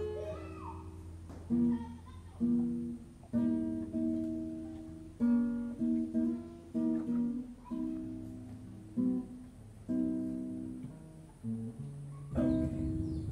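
Background music: an acoustic guitar picking single notes and chords, each note fading out before the next.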